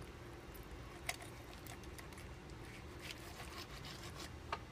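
Faint sounds of a knife working through raw chicken at the thigh joint on a plastic cutting board: a few soft clicks and handling noises over a low room hum.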